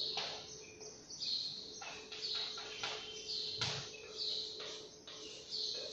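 Chalk writing on a blackboard: a run of short scratching strokes and taps as words are written, mixed with repeated short high chirps. A faint steady hum sits underneath.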